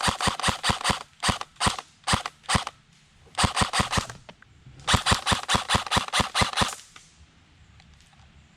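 Airsoft gun firing rapid strings of shots, about six or seven a second, in several bursts with short pauses between them, the longest near the end; the firing stops about seven seconds in. This is suppressing fire laid down at an opponent.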